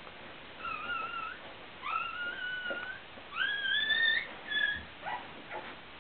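High-pitched dog whimpering: three drawn-out whines of about a second each, the third rising in pitch, then a few shorter, fainter ones near the end.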